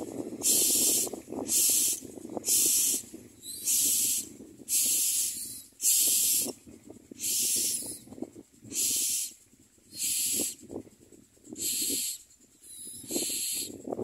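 Common myna nestlings begging: a run of hissing, rasping calls, about one burst a second, each about half a second long, growing weaker near the middle and stronger again near the end. A softer crackle runs beneath them.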